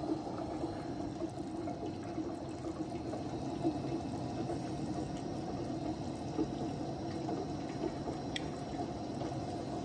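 Sugar syrup for bee fondant boiling in a pot on a gas burner during its foaming stage: a steady bubbling rush that holds level throughout.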